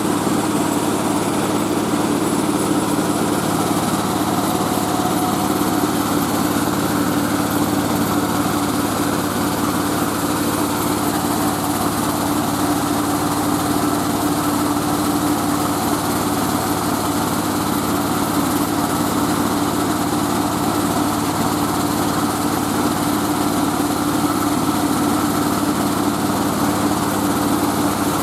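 Mobile rice-milling machine running steadily, its engine and milling machinery making a constant loud hum with no change in speed.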